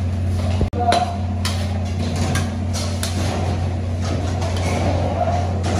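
Busy commercial kitchen: ceramic plates and a metal ladle clattering and knocking as food is served, over a steady low hum and background voices. The sound briefly drops out under a second in.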